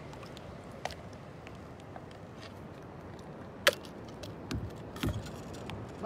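Steady hiss of water and wind along a boat's side, with a sharp click about three and a half seconds in and two dull knocks soon after, as a hooked fish is held by the leader against the hull.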